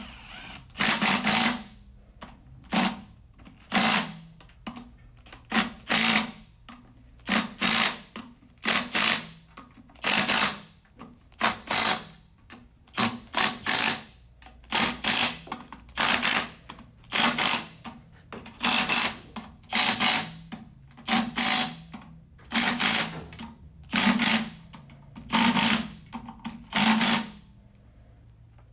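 A handheld cordless power tool runs in many short bursts, about one a second, driving down the bolts that fasten the cover to a CVT transmission case.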